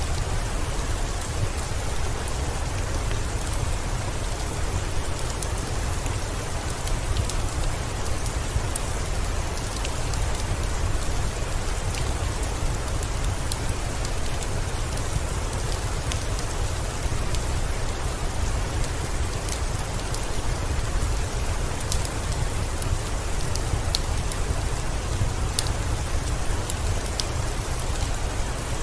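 Steady heavy rain: an even, unbroken hiss with a low rumble underneath and scattered sharp ticks throughout.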